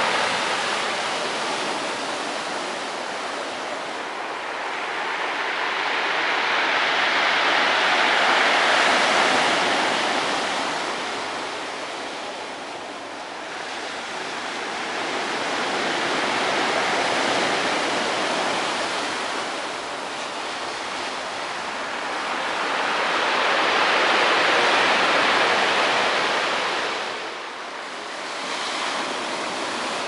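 Sea surf breaking on a pebble beach. The rushing sound swells and fades as each wave comes in, about every eight seconds.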